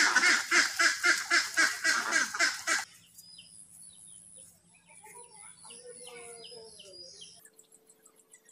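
A flock of domestic ducks quacking loudly in rapid, overlapping calls, cut off abruptly about three seconds in. Faint, scattered bird chirps and short falling whistles follow.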